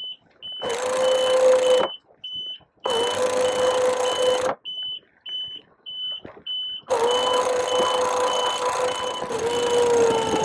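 The boat's hydraulic sail-handling system running in three pushes, a short one, a slightly longer one and a long one from about seven seconds in, with a steady hum that sags a little in pitch near the end as it works the in-boom furled mainsail. Through it all an electronic warning beep sounds about twice a second.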